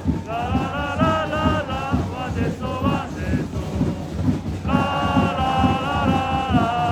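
Football supporters' crowd singing a chant together in long held notes, with a steady beat underneath; the singing drops away briefly around the middle and picks up again.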